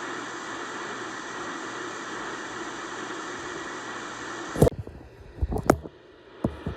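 Steady hiss of radio static with no voice on it. It cuts off suddenly about two-thirds of the way through, followed by a few sharp clicks and low knocks.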